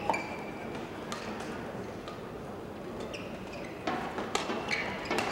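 Badminton players' shoes squeaking and tapping on the court mat between rallies, a few short squeaks and sharp taps over the steady hum of the arena, with a sharper crack near the end.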